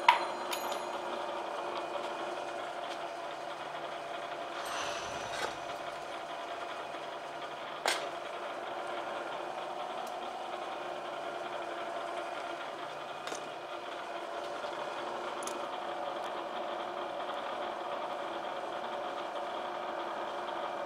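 Bridgeport vertical milling machine running with a steady hum and whine, its spindle bearing worn by the owner's own admission. A sharp metallic click at the start and another about eight seconds in.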